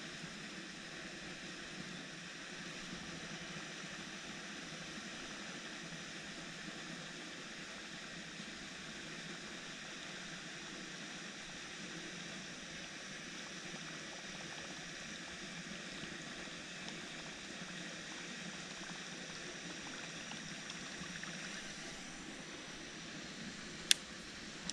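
Steady faint outdoor hiss with no clear single source. Near the end it is broken by one sharp, loud click.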